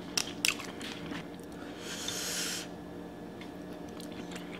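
Sauce-coated crab leg shell being pulled apart by hand: a few sharp cracks and wet clicks at the start, then a short breathy hiss about two seconds in.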